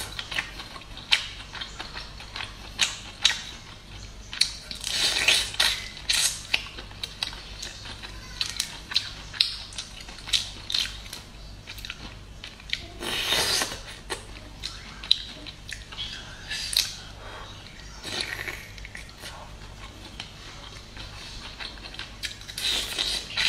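Close-up eating of garlic steamed prawns: wet chewing and lip smacks, with many short clicks and crackles as the prawn shells are pulled apart by hand, and a few longer hissing slurps of the sauce.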